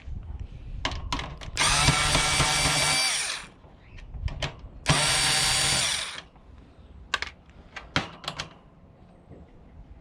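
Power drill driving out screws from a plastic heater casing: two runs of the motor, one of about two seconds and one of about a second, with clicks and knocks of the bit and parts being handled between them.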